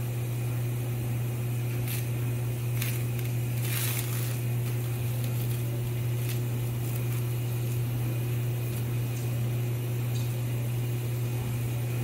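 A steady low machine hum that does not change, with a few soft brushing rustles and light taps about two to four seconds in as a cookie is rolled in powdered sugar in a glass bowl.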